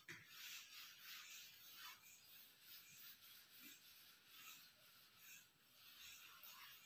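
Faint rubbing of a duster wiping marker off a whiteboard, in short repeated strokes.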